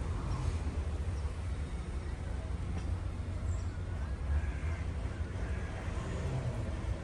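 City street ambience: a steady low rumble of distant traffic, with faint bird calls now and then.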